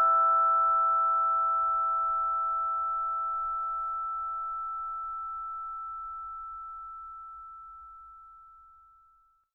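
Last chord of background music, a ringing bell-like mallet chord, dying away slowly. The lower notes fade first, and one high note rings on alone until it dies out just before the end.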